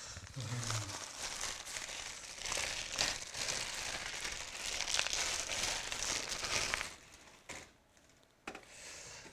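Packaging crinkling as it is handled, with many small crackles for about seven seconds, then a few quieter handling noises.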